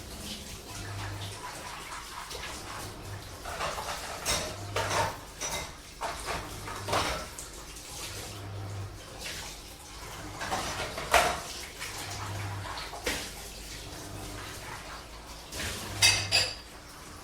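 Dishes and cutlery clinking and clattering as they are washed, over running water and the low, pulsing hum of a washing machine. The loudest clatters come near the middle and again near the end.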